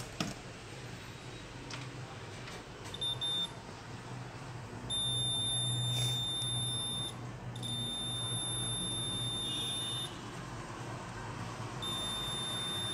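Digital multimeter's continuity buzzer beeping as its probes touch a shorted point on a laptop motherboard: one short beep, then three long steady high-pitched beeps. The beep signals a short circuit, here on the board's 19 V line.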